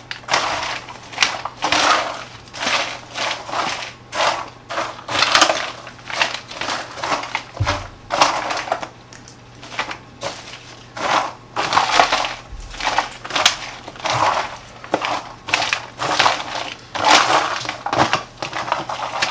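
Spatula stirring caramel-coated popcorn in a disposable aluminum foil pan: popcorn scraping and rustling against the foil in irregular strokes, about one or two a second.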